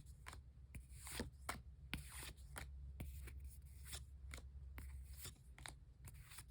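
Pokémon trading cards being handled and slid through by hand: faint rustling with many small clicks and flicks as the cards are moved.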